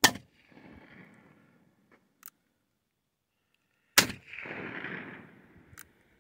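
Two shots from a .31 caliber black-powder cap-and-ball pocket revolver, an Uberti reproduction of the Colt Wells Fargo model, about four seconds apart, each followed by a rolling echo. A sharp click between the shots and another near the end is the single-action hammer being cocked for the next shot.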